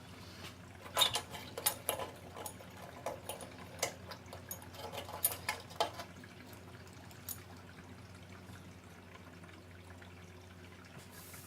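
Scattered light metallic clicks and taps of screws and small burner parts being handled, bunched in the first half and thinning out, over a steady faint low hum.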